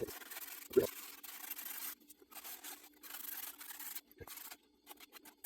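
Hand sanding a wooden axe handle with sandpaper wrapped on a hand sand plane: rasping strokes of one to two seconds with short pauses between them, and a couple of soft knocks.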